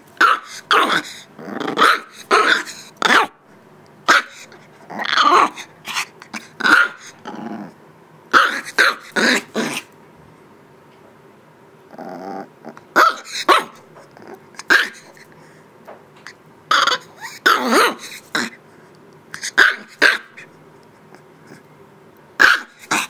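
An 8-week-old Shiba Inu puppy barking in clusters of short yaps, with a low growl about halfway through after a pause of a couple of seconds.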